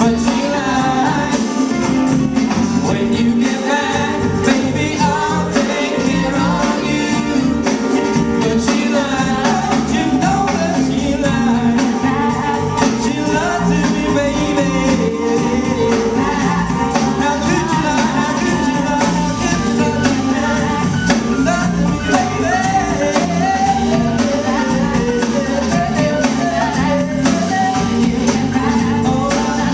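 Live rock band playing a song: a male lead singer with women singing backing vocals, over electric guitars and drums.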